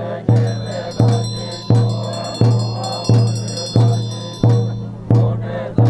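Tibetan Buddhist ritual music: a steady beat of struck percussion, about three strikes every two seconds, each leaving a deep ringing tone that fades before the next, with high bell-like ringing held throughout.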